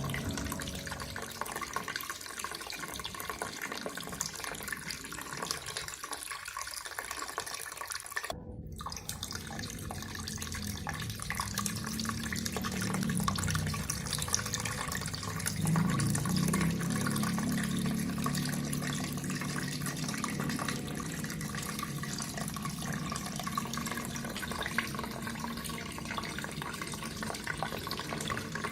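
Water from an aquarium's pumped waterfall running and splashing steadily, with a very short break about a third of the way in.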